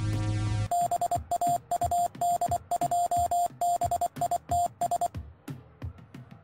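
A low electronic arcade-game drone cuts off under a second in. Then a single-pitched electronic tone beeps on and off in an uneven run of short and long beeps, with clicks, for about four seconds, trailing off into faint ticks.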